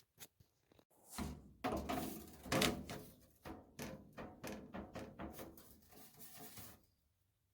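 Thin-metal dryer vent ducting being handled: a run of irregular knocks and rattles starting about a second in, loudest a second or so later, then continuing more lightly until it stops near the end.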